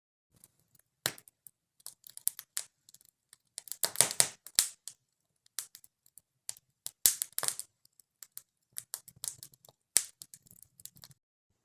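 Wood fire crackling in an open wood stove, with irregular sharp clicks and short crackles at random intervals.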